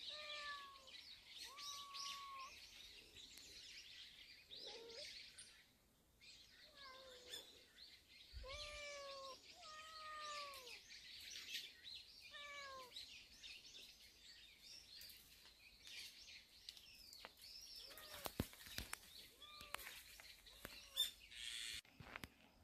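Birds chirping and twittering in woodland, with a cat meowing again and again in short rise-and-fall meows. A few sharp crackles come near the end.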